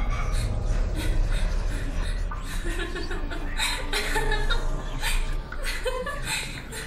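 A person laughing in a string of short, breathy bursts.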